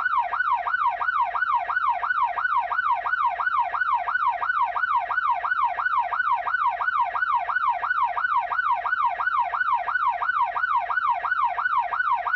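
Police car siren in yelp mode: a tone sweeping rapidly up and down, about three times a second, without a break or change.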